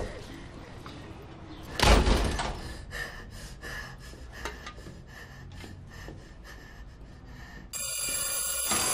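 A glass-paned wrought-iron front door shutting with a bang about two seconds in, followed by faint clicks and rattles. Near the end the sound changes suddenly to a louder steady noise with several held tones.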